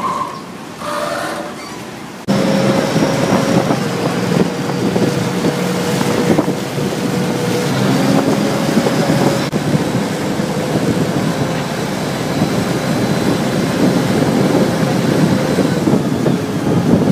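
A river boat's engine running steadily, mixed with the rush of water and wind on the microphone. It starts abruptly about two seconds in, after a quieter stretch.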